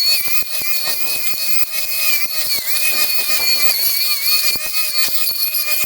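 Milwaukee M18 Fuel cordless strimmer with a brush cutter blade, running at speed: a steady high whine that wavers slightly in pitch, with many quick ticks and crackles as the blade cuts through grass.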